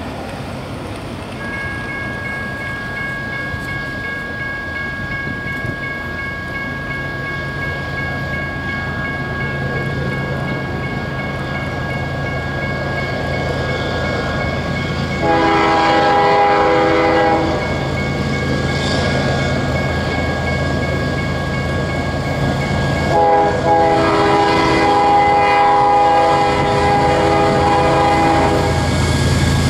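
Freight train approaching behind CSX GE diesel locomotives: a low engine rumble grows steadily louder. The lead locomotive's air horn gives a long blast about halfway in, then a longer one from about three quarters in, with another starting at the very end.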